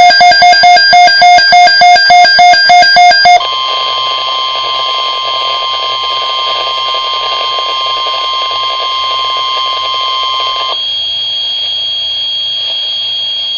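Emergency Alert System tones for a severe thunderstorm watch. A loud rapid beeping, about three beeps a second, plays for the first three seconds or so. Then comes a long steady alert tone that drops away about ten seconds in, leaving a fainter high steady tone over hiss.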